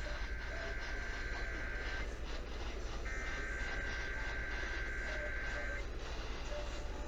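Emergency Alert System SAME header data over the radio: two-tone digital warbling in two bursts, the first ending about 2 seconds in and the second, after a pause of about a second, lasting nearly 3 seconds. Steady static and low hum sit under it.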